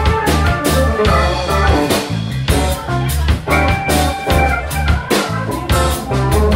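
Live band playing a song with a steady beat: drum kit, electric bass, electric guitar and keyboard.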